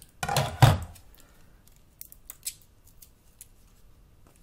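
Protective plastic film being picked at and pulled off a flip phone: two sharp, crackling rips close together in the first second, then a few small clicks and scrapes.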